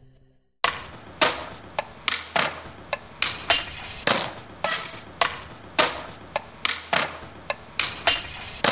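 Background music: a percussion track of sharp struck hits, about two a second with some strokes doubled, coming in about half a second in after a brief silence.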